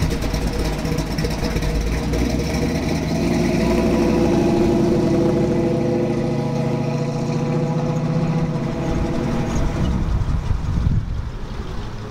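First-generation Chevrolet Camaro's engine running at low speed as the car drives slowly past. It grows louder a few seconds in and then fades as the car pulls away.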